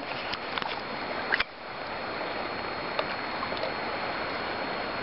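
Steady rush of shallow stream water, with a few light ticks and one sharp knock about a second and a half in.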